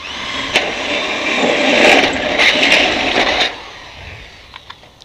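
Electric hand drill boring through galvanised light-steel C-channel, the motor running at speed as the bit grinds into the metal. It stops about three and a half seconds in, and a few light clicks follow.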